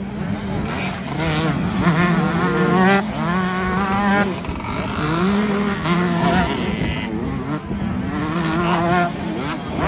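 Several 125cc two-stroke motocross bikes racing past one after another. Their engines rev high, the pitch climbing and dropping again and again as the riders accelerate and shift, with two or more engines overlapping.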